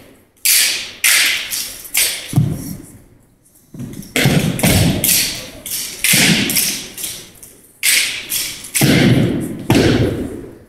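Exhibition drill team's stomps and slaps: sharp impacts with a ringing echo, about one a second in a loose rhythm, with a brief lull around three seconds in.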